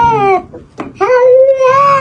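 Orange cat yowling: two long, drawn-out wavering calls, the first breaking off about half a second in and the second starting after a brief pause.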